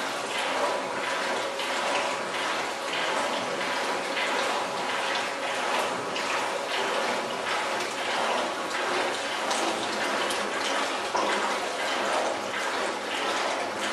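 Tap water running steadily onto potatoes in the stainless-steel hopper of a potato processing machine.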